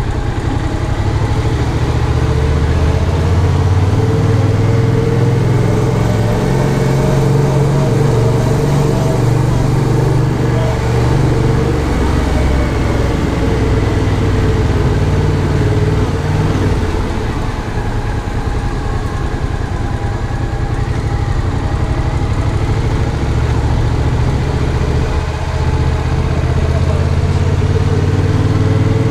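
2015 Yamaha MT-07's two-cylinder engine (a 689 cc parallel twin) running at low revs, its pitch rising and falling gently with the throttle.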